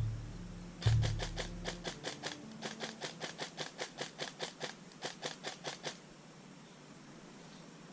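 Airsoft gun firing a quick string of shots, about five a second for some five seconds, each a sharp click. It follows two dull thumps at the start.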